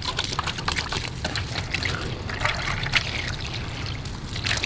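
Water spraying and trickling over a muddy plastic toy truck as it is rinsed clean, with an irregular splashing patter.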